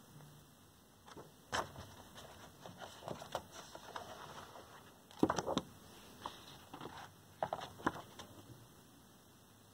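Pages of a thick hardcover art book turned by hand: paper rustling and soft page flaps, in several separate turns, the loudest about five seconds in.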